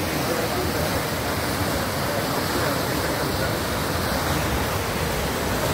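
A swollen river in flood rushing steadily, fast churning floodwater making a dense, even noise.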